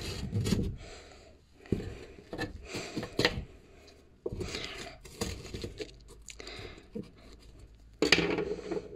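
Rustling and scraping of freshly glued wallpaper being smoothed and handled against a bookshelf backboard, with scattered clicks and knocks.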